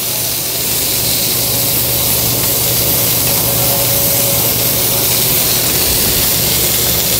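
Chicken sizzling steadily in a hot sauté pan as it sears, over a steady low hum.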